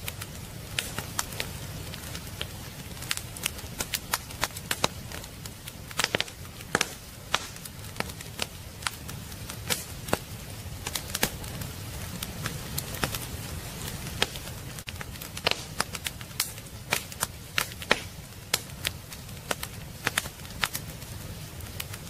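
Wood fire burning in a fireplace, crackling with many sharp pops at irregular intervals over a steady low rush.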